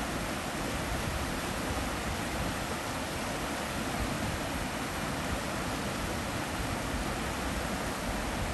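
Shallow stream rushing over rocks in small rapids: a steady, unbroken rush of water.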